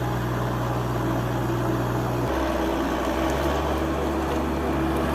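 Engine of heavy off-road machinery running steadily, with its pitch shifting abruptly about two seconds in.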